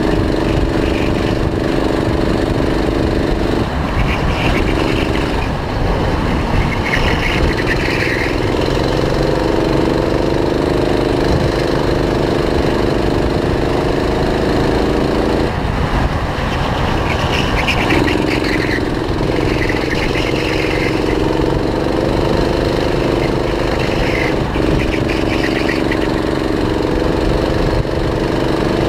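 Go-kart engine running hard on a lap, its note climbing slowly along the straights and dropping away briefly several times as the throttle lifts for corners, with wind rushing over the microphone.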